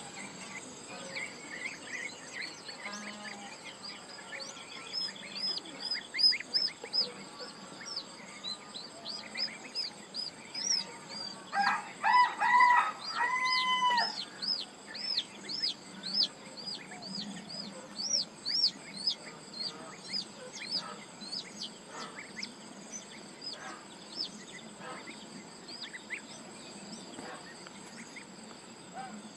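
Chickens calling: a steady stream of short, high peeps, with a few louder, lower calls about halfway through.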